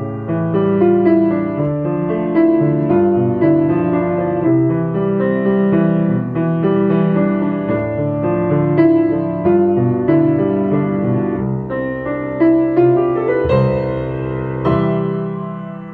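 Piano playing a song accompaniment with varied chords in open, spread position, ending on a final chord near the end that rings and fades away.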